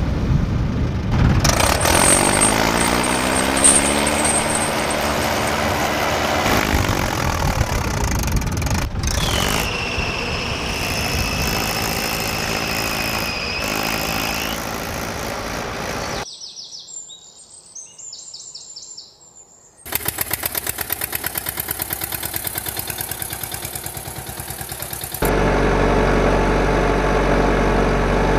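Truck and tractor engine sound effects in several passages. An engine revs up and down in pitch for several seconds, then a steady high tone holds for about five seconds. After a quieter gap of a few seconds comes an engine running in fast, even pulses, and near the end a heavier, deeper engine sound.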